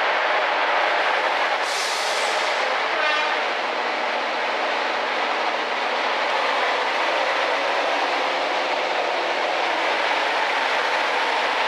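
Class 55 Deltic locomotive's twin Napier Deltic two-stroke diesel engines working steadily, heard from an open coach window behind it. The engine sound is mixed with rushing air and wheel-on-rail noise, with a brief hiss about two seconds in.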